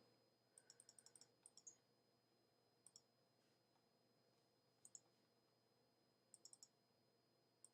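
Faint, sharp clicking in short irregular runs: about eight quick clicks early on, then single clicks and small clusters every second or two.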